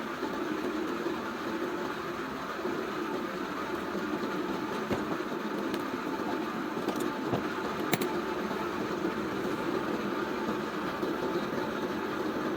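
Steady machine-like running noise, with a few faint clicks and a sharp knock about eight seconds in.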